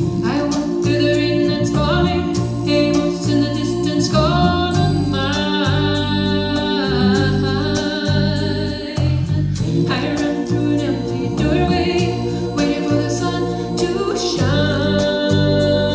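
A song with a female lead vocal and backing voices over a strong, stepping bass line, played back loud through JBL EON ONE portable column PA speakers in a large hall.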